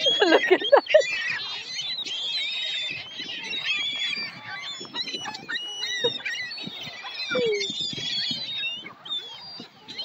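A flock of gulls calling over and over: many high-pitched calls overlapping, with a louder burst in the first second.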